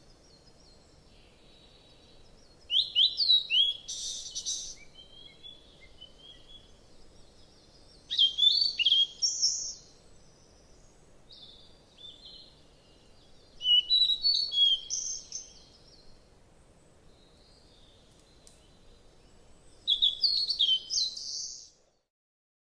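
A songbird singing, short phrases of quick chirps and rising notes repeated about every six seconds, with a faint steady hiss between phrases. The sound cuts off abruptly just before the end.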